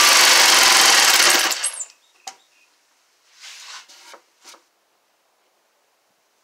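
Jigsaw cutting through a pine 2x4, running loud and steady for nearly two seconds, then switched off. A single click follows, then a few brief handling sounds of the board.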